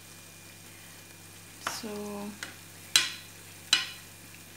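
Oil sizzling faintly as sesame-coated binangkal dough balls deep-fry in a small pot. Past the middle there are two sharp metal clinks, under a second apart, as a metal skimmer knocks against the pot.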